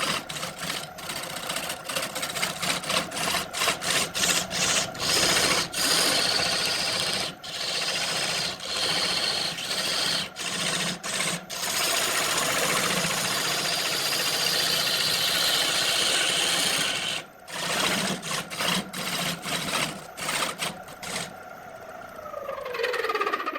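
Wood lathe spinning a redwood blank while a turning tool cuts it, the scraping cutting noise stopping and starting over the steady motor hum. Near the end the cutting stops and the lathe winds down, its hum falling in pitch.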